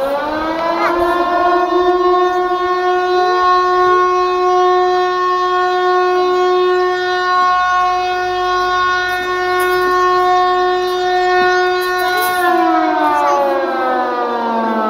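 Civil-defence air-raid siren, very loud, giving its routine weekly sounding. It reaches full pitch in the first second or so and holds one steady wail. About twelve and a half seconds in it starts to wind down, its pitch falling.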